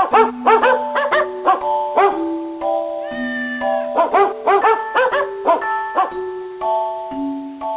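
Cartoon-style musical sound effect: a quick, bouncy melody of short pitched notes with bent, yelping attacks, and one longer held note around three seconds in.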